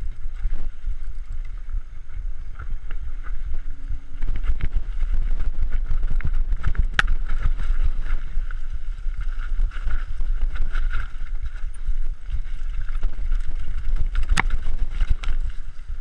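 Mountain bike ridden downhill over a rough dirt forest trail: tyres rolling and the bike rattling, with wind buffeting the microphone and a few sharp knocks from bumps.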